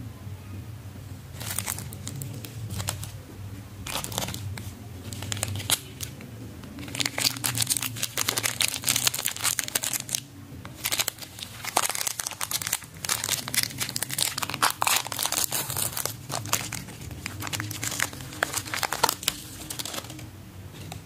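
A plastic chocolate-bar wrapper crinkling and tearing as it is handled and opened, in dense runs of quick crackles with a short pause about ten seconds in.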